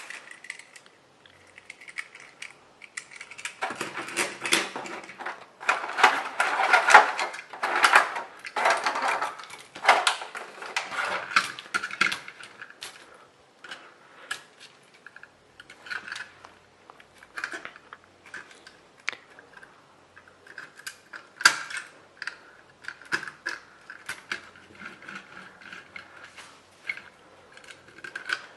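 Small plastic toy cars and trucks being handled and moved about: irregular clicks, knocks and rattles, with dense clattering in the first half and scattered single clicks after.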